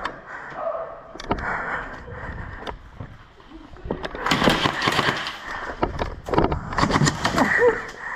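Airsoft guns firing rapid strings of shots, starting about halfway through, with voices shouting among them.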